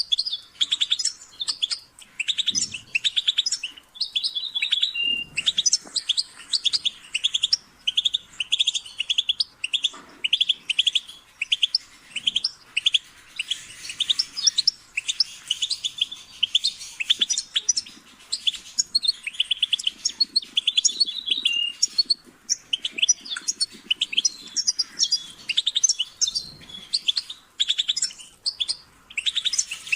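European goldfinch singing: quick, twittering runs of high, rapid notes, phrase after phrase with short pauses between.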